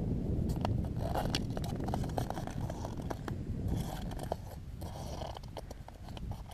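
Irregular crisp crunching of footsteps in packed snow, over a low rumble of wind on the microphone.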